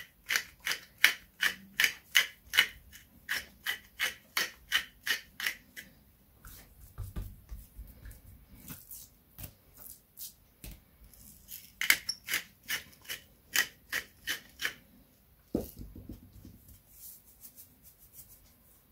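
Hand-twisted pepper mill grinding over raw pork cutlets, an even rasping stroke about three times a second, in two runs with a pause between them. Between the runs, soft handling of the meat on a wooden board, and a single knock about three-quarters of the way through.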